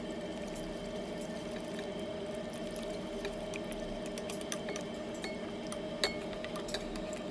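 Wire whisk stirring corn flour into water in a pan: the liquid swishes, with a few light clicks of the wires against the pan, the clearest about six seconds in. A steady hum runs underneath.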